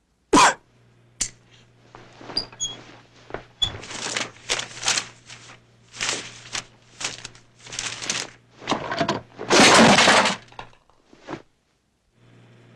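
Foley sound effects performed live for a film scene: a sharp crash, then an irregular run of knocks, rattles and breaking-like clatter, with a longer, loud crash about ten seconds in.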